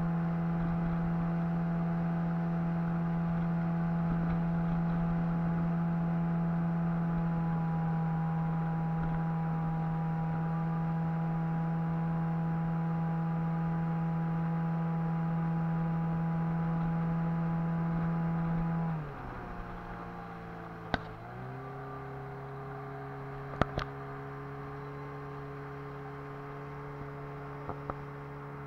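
Boat outboard motor running steadily at cruising speed, then throttled back about two-thirds through, its pitch dropping as it carries on slower and quieter. A few sharp clicks come after the slowdown.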